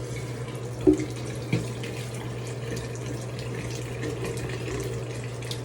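Water running steadily from a tap, with a couple of light knocks about a second in.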